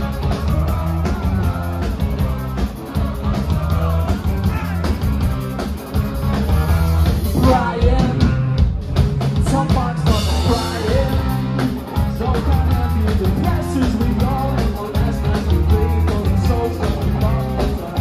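Rock band playing loud: drum kit, electric guitar and a singing voice.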